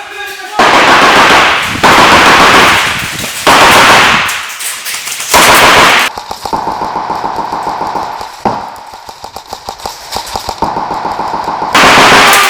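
Airsoft guns firing full-auto: several long, loud bursts in the first half, then quieter rapid fire for several seconds, and another loud burst near the end.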